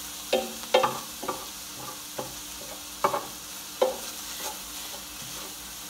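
Ground beef sizzling in an electric skillet as a utensil stirs it, scraping and knocking against the pan in six uneven strokes over the first four seconds over a steady sizzle.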